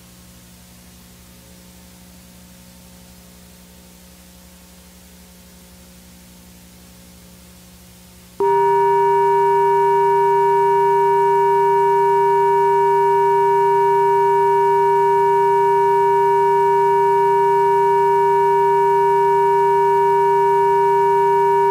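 Faint hiss and low hum of dead air, then about eight seconds in a loud, unwavering test tone switches on abruptly and holds: the tone that runs under a TV station's test pattern after sign-off.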